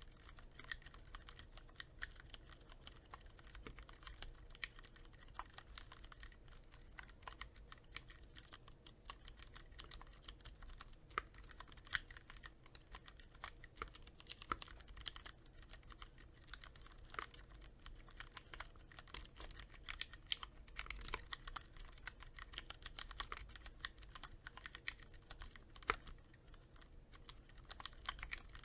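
Continuous typing on a Cherry MX Board 3.0S mechanical keyboard with Cherry MX Red linear switches, lightly lubed with Krytox 105: a steady, irregular stream of key clacks, several a second.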